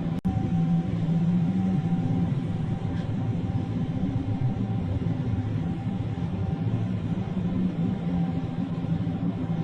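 Combine harvester engine running steadily: a low drone with a steady hum, briefly cut off just after the start.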